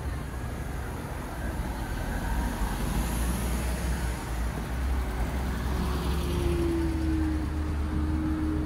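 Road traffic going by on a city street: a steady low rumble with tyre hiss that swells about three seconds in, and a vehicle's engine tone that drops slightly in pitch in the second half as it passes.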